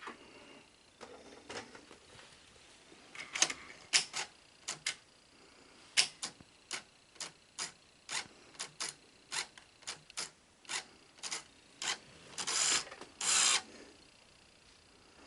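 Sony SL-HF600 Betamax VCR's mechanism clicking over and over at about two clicks a second after power-on, then two short rasping mechanical bursts near the end. The machine now has power but its switches keep being activated, a sign of the mechanism behaving erratically.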